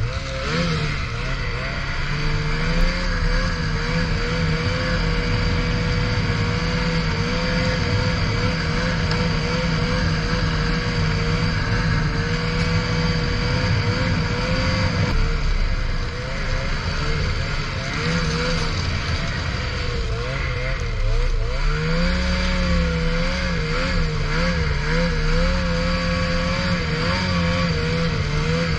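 Ski-Doo Summit 600R E-TEC snowmobile's two-stroke twin running at a steady cruising pace, its pitch wavering slightly. The engine eases off a little past the middle, then picks back up about two-thirds of the way through and holds.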